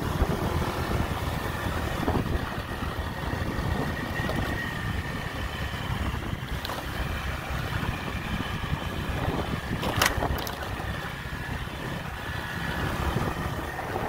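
Wind rushing over the microphone and a motorbike engine running while riding, with a sharp click about ten seconds in.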